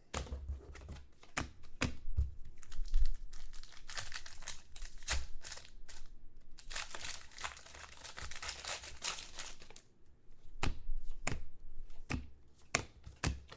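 Foil trading card pack wrappers being torn open and crinkled, an irregular run of rustles and sharp crackles.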